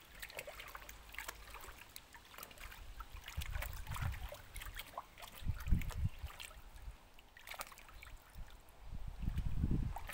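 Water splashing and sloshing in a shallow paddling pool as a husky wades and paws at floating water balloons and toys, with many small splashes. Low thuds come a few times: a little before the middle, in the middle and near the end.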